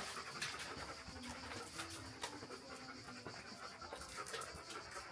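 Faint, quick, steady panting breaths.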